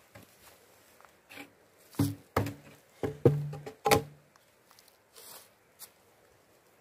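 A quick run of about five loud knocks in the middle, some with a short low ring after them.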